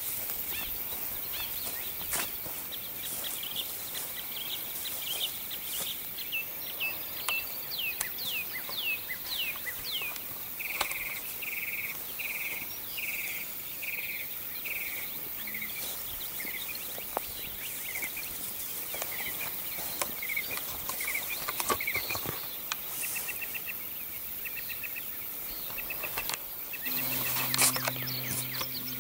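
A songbird singing: a quick run of down-slurred whistles, then a string of repeated notes about two a second, and later more scattered chirps, over outdoor background with scattered light clicks and rustles. Near the end a broader noise rises with a low steady hum.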